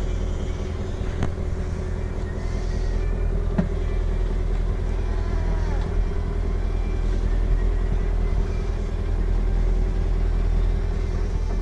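Boat engine running steadily: a low drone with a steady hum over it.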